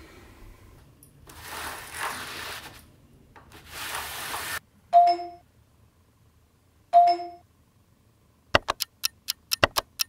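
Two identical bright chime sound effects about two seconds apart, each a single ding that rings briefly. They come after two short bursts of rustling noise, and near the end a rapid run of sharp clicks begins.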